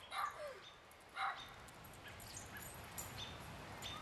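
A dog barks faintly twice, once at the very start and again about a second later, with faint high chirps behind.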